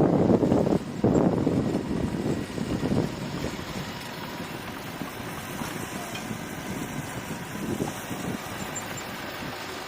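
Diesel engine of a bulldozer at work, louder and rougher for the first few seconds, then running steadier and quieter.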